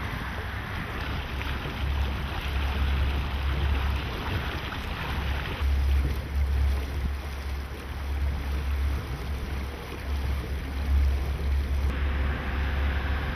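Wind buffeting the microphone of a boat under way, a gusty low rumble that comes and goes every second or so, over a steady rushing hiss of water.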